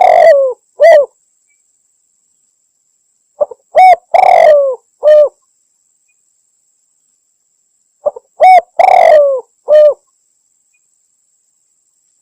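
Spotted dove cooing in a recorded hunting lure call. It repeats one phrase (a couple of short coos, a longer falling coo and a final coo) three times, about every four and a half seconds, with dead silence between phrases.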